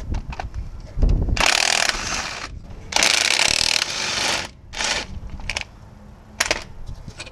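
Cordless impact wrench running the hub-bearing mounting bolts out of the steering knuckle of a 2007 Ford F-150's front wheel: two loud rattling runs, about a second and a second and a half long, then a short third burst, with clicks of the socket and bolts in between.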